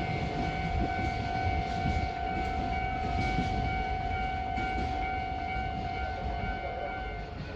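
Container freight train rolling past, a steady low rumble of wagons on the track. A steady high-pitched ringing tone runs over it and stops about seven seconds in, while the rumble goes on.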